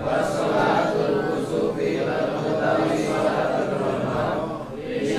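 A man's voice reciting in a chant-like, sing-song tone into a handheld microphone, in phrases with a short break about four and a half seconds in.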